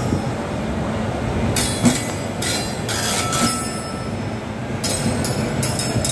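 A WAP-7 electric locomotive and its train rolling slowly past with a steady low rumble, broken by several short bursts of high-pitched screech and hiss from the wheels and running gear.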